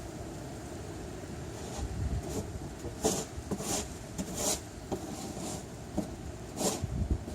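Footsteps crunching through deep snow: a string of short, crisp crunches, roughly one to two a second, clearest in the second half.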